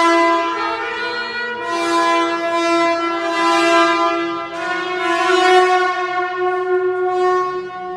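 A loud, sustained droning tone rich in overtones, holding nearly one pitch with small steps up and down and brief dips about one and a half and four and a half seconds in.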